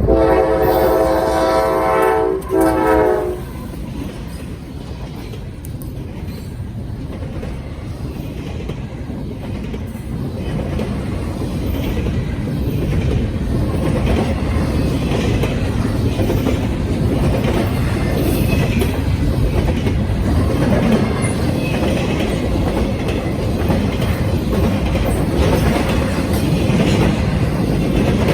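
CSX freight train's locomotive air horn sounds one long blast and then a short one. After that comes the rumble and clatter of the train's wheels on the rails, getting louder from about ten seconds in.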